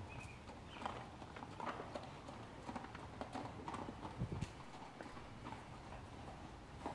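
Hoofbeats of a ridden horse trotting on the sand footing of an indoor arena, a series of light thuds, with one duller thump about four seconds in.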